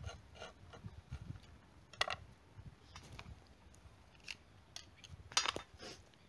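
Footsteps on dry, stony ground littered with sticks. Low thuds run throughout, with irregular sharp crunches and snaps; the loudest come about 2 seconds in and a cluster about 5.5 seconds in.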